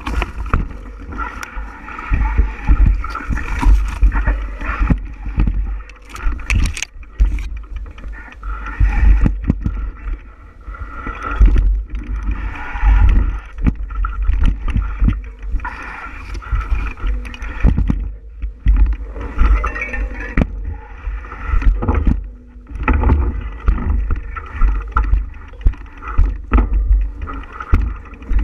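Wind rumbling and buffeting over the microphone of a camera on a moving bicycle, with frequent knocks and rattles from the bike jolting over a rough trail.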